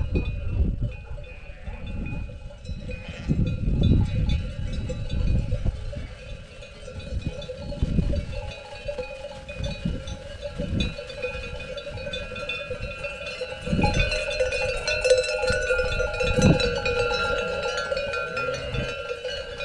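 Bells on livestock ringing and clanking as the flock moves, growing louder in the second half, with scattered low thumps.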